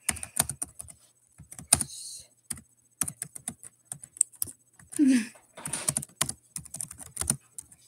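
Rapid, irregular clicking and tapping of small hard objects, with one short falling voice-like sound about five seconds in.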